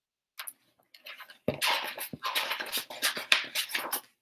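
Paper and cover rustling of a picture book being handled: a few small clicks, then a dense run of scratchy rustles from about a second and a half in, stopping just before the end.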